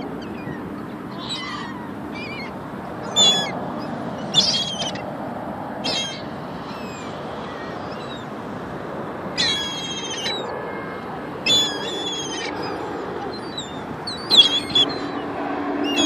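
Gulls calling: scattered loud, harsh calls, with two longer runs of repeated notes past the middle, over steady background noise.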